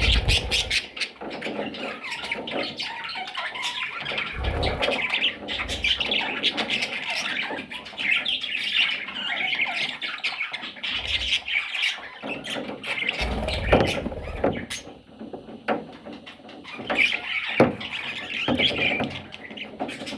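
Budgerigars chattering and squawking continuously, with scattered clicks and a few low thumps.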